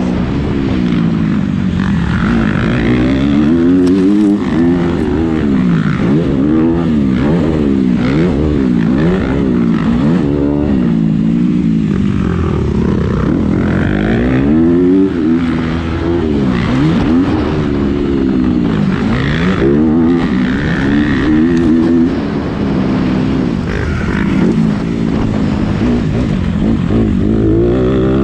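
Motocross bike engine heard close up from on board, revving up and dropping back again and again as the throttle is worked and the gears are shifted around the track.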